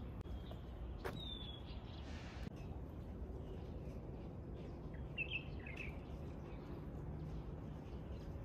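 Steady low outdoor background rumble with a few short, faint bird chirps: a falling chirp about a second in, just after a sharp click, and a small cluster of chirps around five seconds in.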